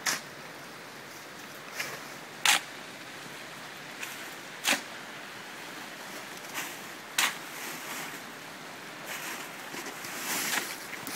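Steady rushing noise of rain and running water, with short sharp scrapes of sand being shovelled into sandbags about every two and a half seconds, and a longer rougher rustle near the end.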